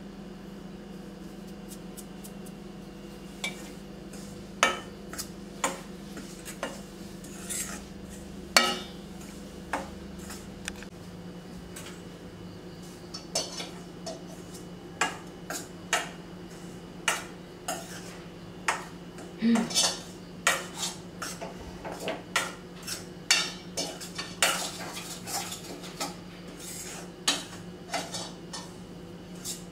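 A metal spoon clinking and scraping against a steel kadai while flour is stirred in it, in irregular strokes that grow more frequent in the second half, over a steady low hum.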